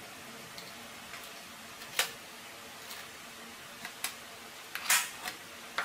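Crab pieces being handled and set into a stainless steel tray: a handful of sharp clicks and knocks of shell and claws against the metal at uneven intervals, the loudest about five seconds in, over a faint steady hiss.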